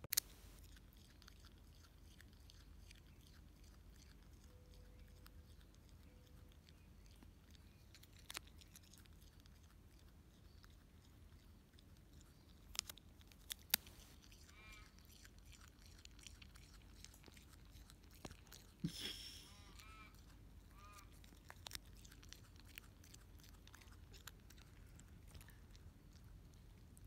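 Quokka chewing and biting leaves up close: faint munching with a few sharp, crisp crunches scattered through.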